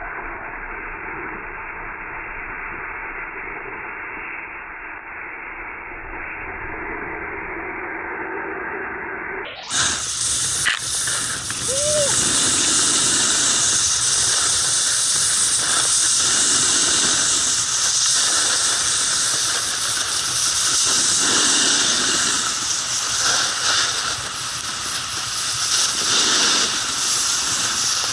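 Snowboard edges scraping and hissing on snow, with wind rushing over a helmet-mounted action camera, a steady noisy rush. About ten seconds in it turns suddenly brighter and louder.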